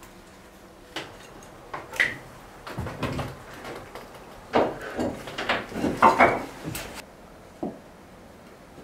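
Irregular knocks, scrapes and clatter of a cut plywood patch and tools being handled and fitted against a wooden bulkhead. It is busiest a few seconds in, with one last knock near the end.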